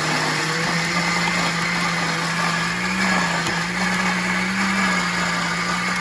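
Countertop blender motor running steadily, churning a thick red chili paste in a glass jar.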